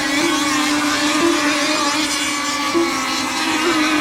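Radio-controlled racing boats running flat out in a race, a steady high motor whine with many overtones and brief rises in pitch about once a second as boats throttle up.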